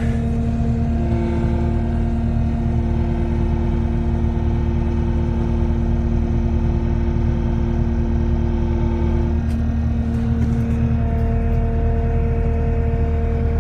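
Kubota SVL75-2 compact track loader's diesel engine running steadily under load as the machine creeps down a steep dirt slope. Steady whining tones ride over the engine and change pitch about a second in and again near the end.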